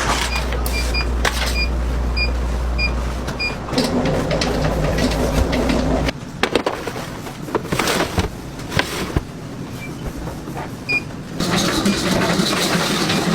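Bakery production-line machinery running, with a low hum and a short high electronic beep repeating about every 0.4 s for the first few seconds. The machine noise changes character several times, about 4, 6 and 11 seconds in, with scattered clicks and knocks.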